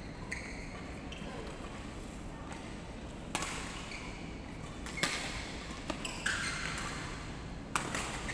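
Badminton rackets hitting a shuttlecock in a rally: about five sharp, irregularly spaced hits from about three seconds in.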